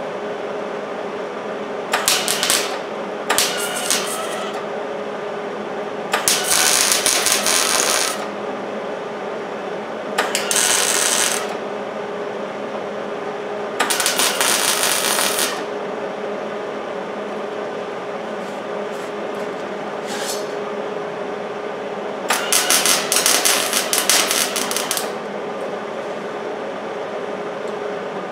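MIG welder tack welding sheet-metal rust repair panels in place: about seven crackling bursts of arc, each half a second to two seconds long, over a steady background hum.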